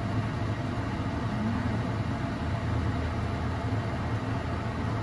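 A steady low machine hum with a broad hiss behind it, even throughout.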